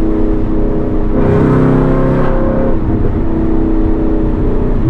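2021 Mustang GT's 5.0 Coyote V8 running through catless long-tube headers while driving. The engine note swells about a second in, dips briefly near the middle, then holds steady.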